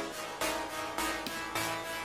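Instrumental background music with a steady beat, a little under two beats a second.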